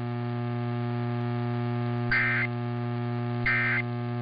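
Steady electrical hum under two short, high data-tone bursts about a second and a half apart, starting about two seconds in. These are the Emergency Alert System's SAME end-of-message code bursts, which mark the close of a weekly test.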